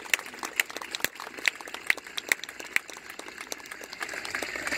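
Audience applauding, with single claps from people close by standing out over the applause of the wider crowd; the clapping thins out after about three seconds.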